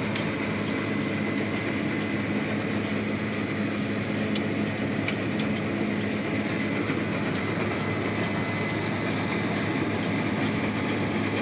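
Case IH 8120 combine harvester running steadily under load while harvesting soybeans: a constant machine drone with a faint high whine over it.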